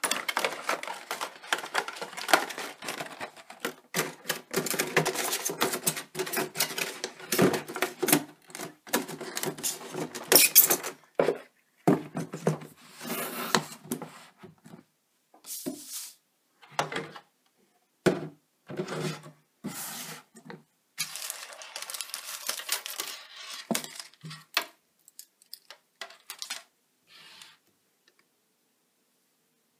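Clear plastic packaging tray being handled: crinkling and rustling with clicks and light knocks, dense for about the first half, then in separate short bouts of rustling and tapping.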